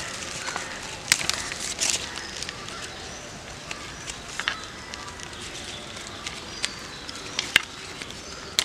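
Leaves and twigs rustling as leaves are picked off a plant by hand, with several sharp snaps of stems breaking.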